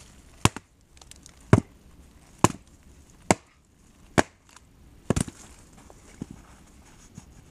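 Gränsfors Bruks forest axe chopping into a log: six sharp wooden strikes about a second apart, then two lighter knocks near the end.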